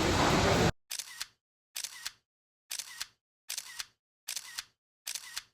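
A steady rush of rain and falling water cuts off abruptly under a second in. Then a camera shutter clicks six times, about once every 0.85 s, each a quick double click with dead silence between.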